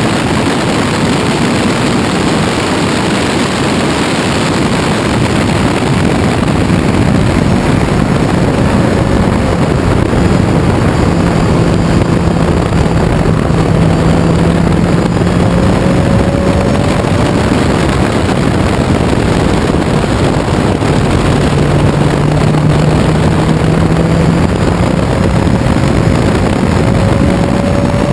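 1968 Ginetta G16 race car at speed, heard from its open cockpit: a dense rush of noise over the engine, whose note climbs in pitch twice as the car accelerates through the gears.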